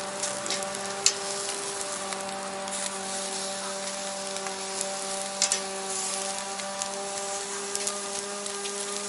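Chunks of beef shank sizzling as they sear on a grill grate over charcoal, with scattered sharp crackles and pops. A steady low hum runs underneath.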